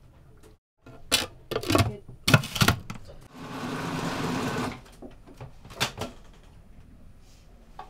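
A few clunks as a food processor is handled, then its motor runs in one short burst of about a second and a half, blending a boiled orange into cake batter to a fine pulp.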